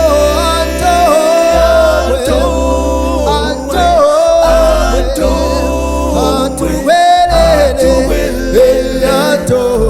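A cappella vocal group singing a gospel song in harmony, a lead melody over a deep, steady bass line.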